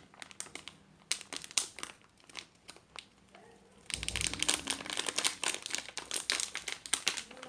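Small plastic bag crinkling as it is handled: a few scattered crackles at first, then dense, continuous crinkling from about four seconds in.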